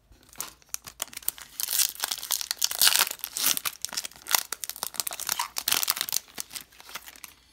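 Foil wrapper of a Panini Prizm football card retail pack being crinkled and torn open by hand: a dense crackling full of small clicks, loudest about two to three seconds in.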